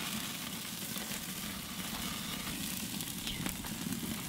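Wagyu New York strip steaks sizzling steadily on a hot grill grate over an open fire, the final high-heat sear of a reverse sear, with a few faint pops.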